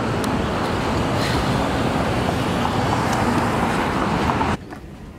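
Steady traffic noise of a busy city street, an even rumble and hiss with no distinct event standing out. It cuts off suddenly near the end to a much quieter background.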